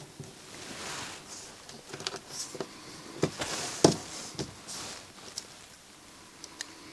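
Soft scraping and a few sharp clicks of small parts being handled as the laser pickup is worked out of a CD player's drive mechanism. The loudest click comes about four seconds in.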